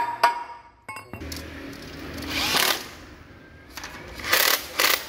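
Two ringing hammer blows on steel at the start, part of knocking loose the cast flywheel housing of a diesel engine for removal. These are followed by several short, loud bursts of a power tool.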